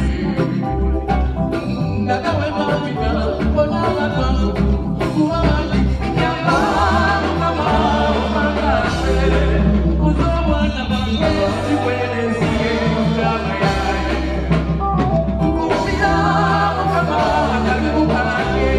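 Live band music with a singer's voice over a prominent bass line, played during a sound check.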